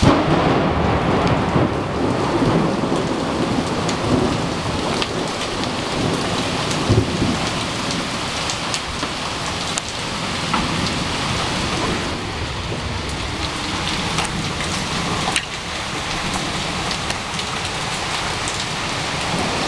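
Large hailstones, up to about 2¼ inches across, and heavy rain pelting down, a dense steady hiss dotted with many sharp, separate cracks of stones striking.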